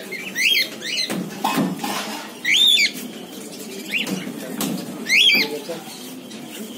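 Young sun conure chick giving short, rising-and-falling squawking calls, about five of them, the strongest in the middle. The small, thin calls are the sign that it is still a chick.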